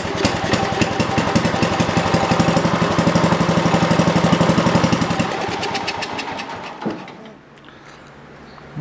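The George Work Bird mower's Kohler engine runs with rapid, even firing, then sputters and dies about seven seconds in. It is running only on gas poured into the carburettor because its fuel pump is not drawing up enough fuel.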